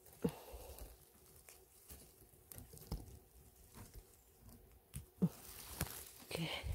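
Dry fallen leaves and moss rustling and crackling as a gloved hand gropes through the forest floor and pulls up a cluster of funnel chanterelles, with scattered small clicks and snaps. A few louder knocks come just after the start and several more near the end.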